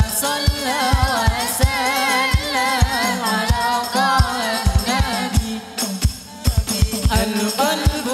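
Hadrah ensemble performing sholawat: male voices singing an ornamented, wavering devotional melody into microphones over hand-struck rebana frame drums with deep, booming low strokes. The sound eases briefly about six seconds in, then picks up again.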